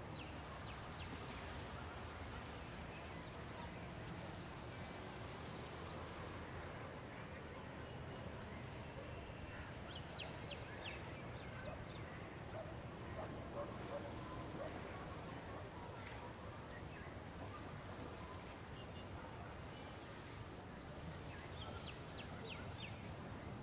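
Outdoor ambience: a steady low background hiss with faint bird chirps now and then, a small cluster about ten seconds in and another near the end.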